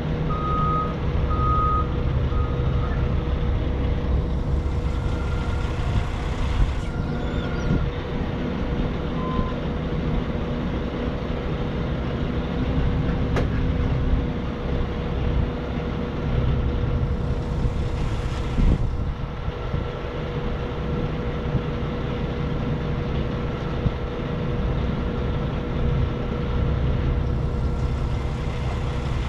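Forklift running at the trailer, its engine making a steady rumble and hum, with its backup alarm beeping in an even series for the first three seconds before stopping.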